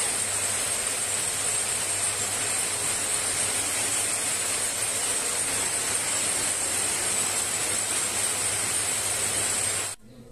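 Electric, belt-driven spindle winding machine running: a steady, loud whirring hiss with a high whine over a low hum. It cuts off abruptly near the end.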